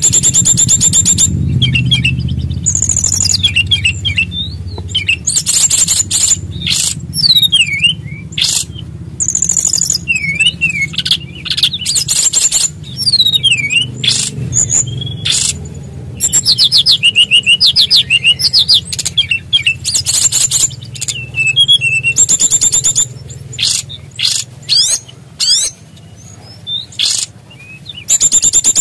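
SRDC (sikatan rimba dada coklat) songbird singing loudly and without pause. Its song is a varied mix of rapid high rolling trills and sliding whistled notes that rise and fall.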